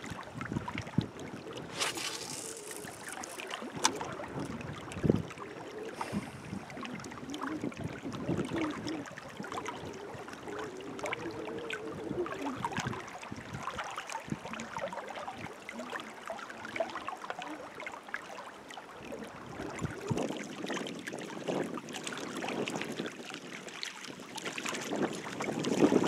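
Wind gusting on the microphone over small waves lapping and splashing against a rocky lakeshore, with irregular little splashes and clicks.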